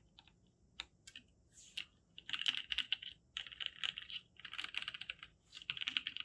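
Typing on a custom mechanical keyboard with lubed NovelKeys Cream linear switches and GMK Signal keycaps. It starts with a few scattered keystrokes, then about two seconds in it turns into fast runs of keystrokes, each about a second long with short pauses between.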